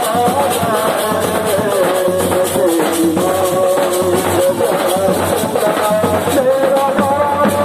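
A man singing a Hindi song in a long, gliding melody over a steady shaker-like rhythmic beat.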